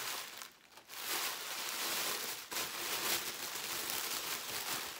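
Tissue paper rustling and crinkling as it is pulled out and handled, with a brief lull just under a second in.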